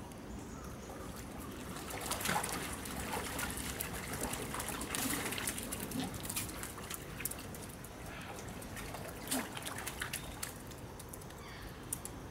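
Water trickling and sloshing, with many short wet ticks and splashes, busiest from about two seconds in until about ten seconds in.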